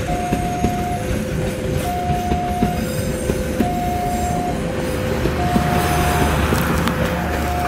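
Passenger train coaches rolling past close by: a steady rumble with sharp wheel clicks over the rail joints, swelling about two-thirds of the way through as the power-generator car goes by. Over it an electronic two-note tone alternates high and low, each note held a little under a second.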